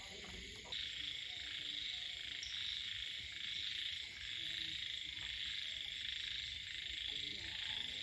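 Dense, steady chorus of frogs and insects, a continuous high trilling that gets suddenly louder about a second in and then holds.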